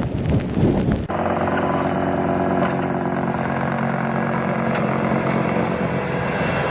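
Wind buffeting the microphone, then about a second in an abrupt switch to a vehicle engine running steadily at an even pitch.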